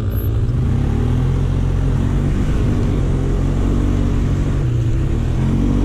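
Polaris Sportsman ATV engine running under way, its note rising as the throttle opens about a second and a half in and again near the end.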